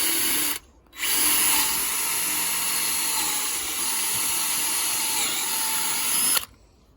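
Hand-held electric drill drilling a hole: a brief run that stops, then a longer steady run of about five seconds that cuts off near the end.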